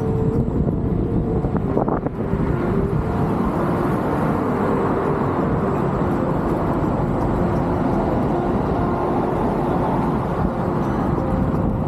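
Wind buffeting the microphone of a camera on a moving electric unicycle: a steady, mostly low rushing noise.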